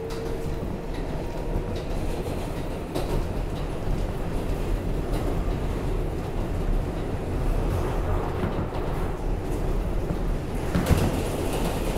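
R188 subway train running along the track, a steady rumble with the click of rail joints and a louder clatter about eleven seconds in.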